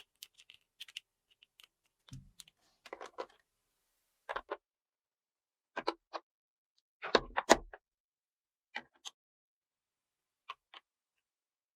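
Small plastic toy pieces being handled and set down: scattered light clicks and taps with short rustles, the loudest a pair of knocks about seven seconds in.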